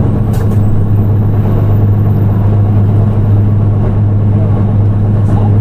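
Diesel engine of a Nissan Diesel PKG-RA274KAN city bus running with a steady low drone that holds the same pitch, with a couple of faint brief ticks.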